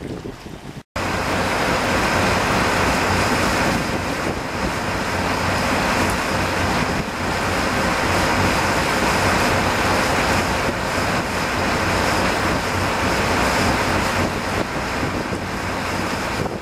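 Boat underway: steady wind on the microphone and rushing water from the wake, over the low drone of the boat's twin Caterpillar 3116 diesels. The sound drops out for a moment about a second in, then runs on evenly.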